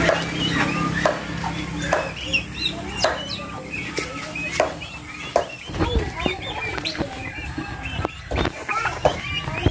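Domestic turkeys making short, repeated clucking calls at irregular intervals, with a few sharp knocks among them.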